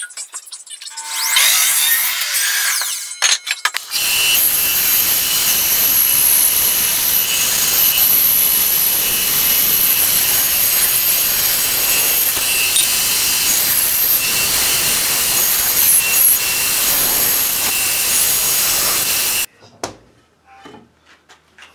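Bench bandsaw cutting pallet wood to a paddle shape: a steady, loud, high-pitched cutting noise from about four seconds in that stops abruptly near the end, after a few shorter bursts of noise at the start. Near the end, light knocks of wood pieces being handled.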